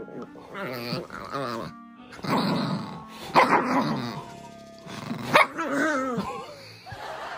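White toy poodle growling and barking in several bursts of about a second each: an annoyed reaction after having air blown into her ear. Background music plays underneath.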